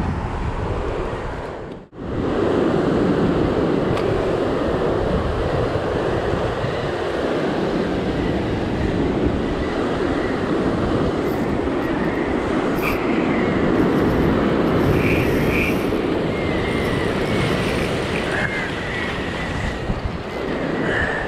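Ocean surf breaking and washing over rocks, mixed with wind buffeting the microphone, as a steady rushing noise. The sound cuts out briefly about two seconds in, then carries on.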